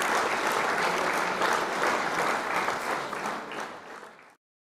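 Applause, many hands clapping in a dense, even patter, fading out and stopping about four seconds in.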